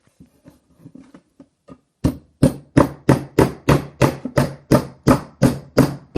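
Hammer driving a nail into the wooden side panel of a bluebird nest box, the pivot nail for the hinged side. A few light taps set the nail, then about two seconds in come steady, hard blows, about three a second.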